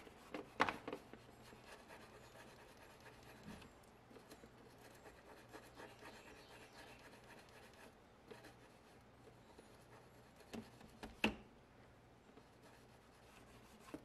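Toothbrush bristles rubbing and scratching on the plastic control panel of a Bosch dishwasher, scrubbing food build-up from around the sticky buttons. A few sharp clicks sound near the start and two more about three quarters of the way through.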